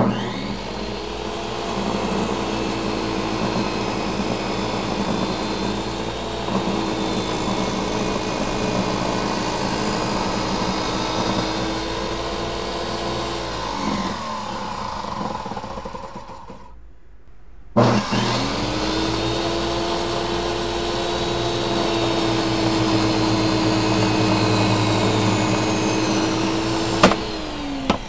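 Small benchtop table saw switched on and spinning up to a steady whine while a block of dark hardwood for a knife handle is fed through its blade to cut it in half. About halfway through it winds down, then after a short gap it starts again and runs steadily, ending with a sharp click and winding down near the end.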